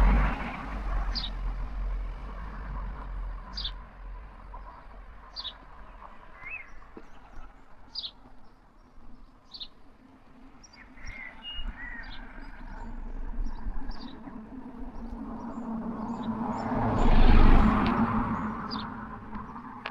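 A passing vehicle's road noise fades away in the first few seconds, and another vehicle approaches and passes near the end, loudest a little over two seconds before the end. In between, a small bird calls with short high chirps, about one every second or two.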